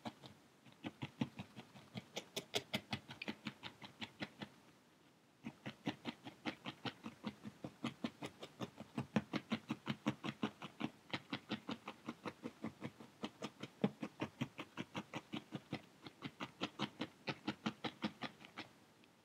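A felting needle stabbing repeatedly through a cone of wool into a foam felting pad, compacting the wool: quick, even pokes at about five a second, with a brief pause about five seconds in.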